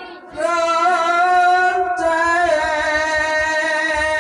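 A singing voice holding long notes with a slight waver. After a brief pause at the start, one phrase comes in, and a second begins about two seconds in, stepping to a different pitch.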